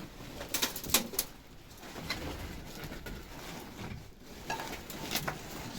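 A bird cooing, among a few sharp clicks and knocks.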